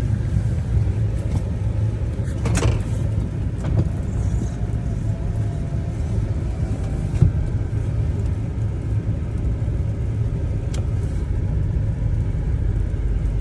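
Chevrolet Tahoe running, a steady low rumble with a few faint clicks or knocks.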